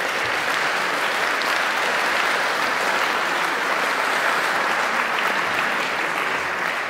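Audience applauding, a steady clapping that eases off slightly near the end.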